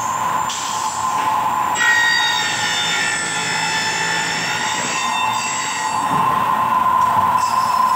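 Horizontal milling machine running with a steady whine. From about two seconds in, for about three seconds, the cutter squeals at a high pitch as it is fed into an aluminium T-section profile.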